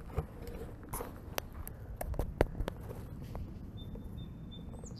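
Faint rustles and scattered light clicks of a camera being handled and steps on a lawn as the view is lowered to grass level, with a thin, high bird note near the end.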